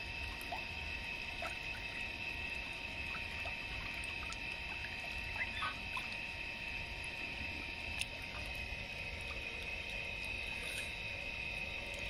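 Water running steadily from a hose into a plastic tub, with light splashing as a goose dabbles its bill in the water. A single sharp click sounds about 8 seconds in.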